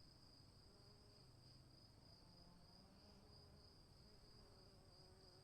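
Faint, steady high-pitched insect trilling, crickets by its sound, with a low background hush.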